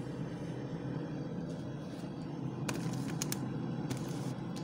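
Food containers being handled and set into a fridge: a few light clicks and knocks, the clearest about three seconds in and near the end, over a steady low hum.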